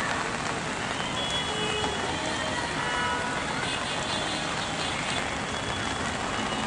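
Steady hiss of rain and traffic on a waterlogged street, with a few faint short high tones coming and going.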